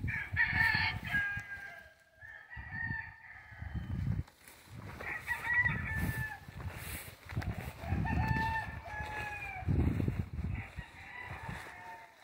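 Roosters crowing again and again: about six crows, each about a second long and dropping at the end, from more than one bird at different pitches. Bursts of low rumble run underneath.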